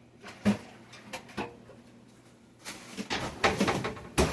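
Kitchen utensils being handled: a few separate clicks and knocks, then a quick clatter of several together about three seconds in, and a sharp knock near the end.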